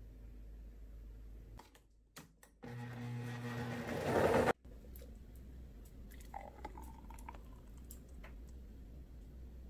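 Vacuum blender motor running on milk and fruit for about two seconds, getting louder, then cutting off abruptly, with a few clicks just before it starts. Later, blended juice is poured from the jar into a glass.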